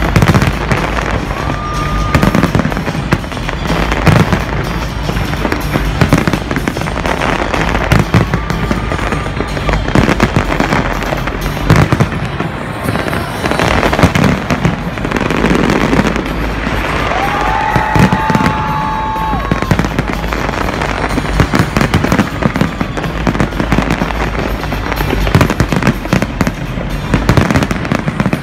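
A large fireworks display going off without pause: many bangs and crackles from aerial shells in quick succession, over a continuous wash of noise.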